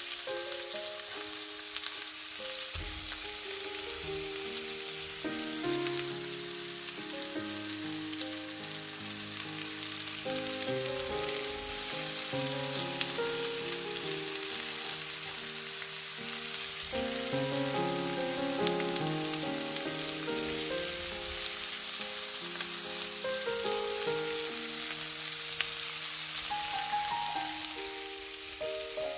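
Butter frying in a pan, a steady sizzle, with soft instrumental background music playing a slow melody over it.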